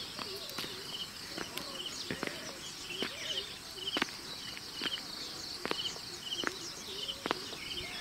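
Outdoor ambience of birds and insects: a short rattling chirp repeats about once a second over a steady high insect hum, with sharp clicks here and there.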